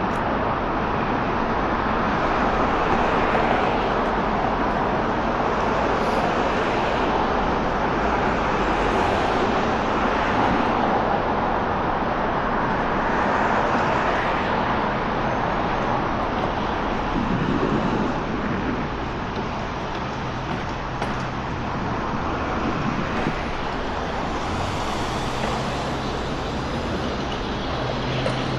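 Steady road traffic noise from cars going by on a busy city street, easing slightly about two-thirds of the way through.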